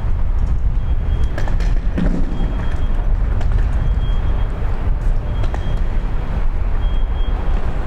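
Steady low rumble of vehicle or traffic noise, with a faint short high beep recurring every second or so.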